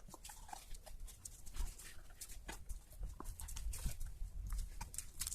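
Faint small clicks and short rubbery squeaks of a brake caliper's rubber dust boot being worked loose and pulled out by hand.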